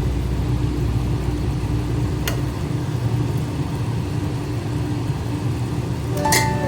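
Steady low mechanical rumble, with one sharp click a little over two seconds in and a brief clatter near the end.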